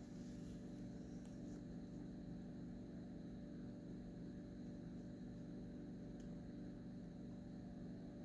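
Quiet room tone with a steady, faint low hum.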